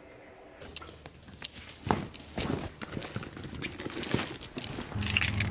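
A quick run of clicks, taps and rustles, with a low steady hum coming in near the end.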